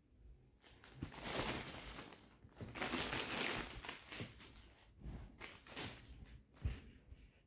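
Cloth rustling in long swishes as a woven suit fabric is unfolded and shaken out, with a short thump near the end.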